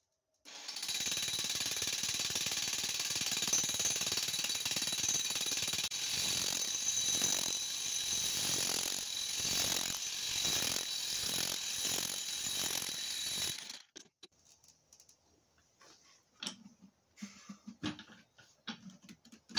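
Corded electric jackhammer with a pipe-driver attachment hammering a 1 1/4-inch sand point well pipe down into the ground. It starts about half a second in, runs steadily for about thirteen seconds, then cuts off, leaving a few light knocks.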